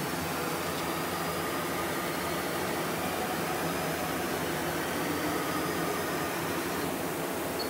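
Haas VF3 CNC vertical machining center running: a steady whirring machine noise with a faint high whine over it.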